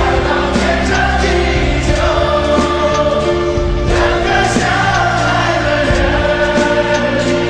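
Pop song with choir-like backing vocals holding long notes over a steady bass line and a regular drum beat.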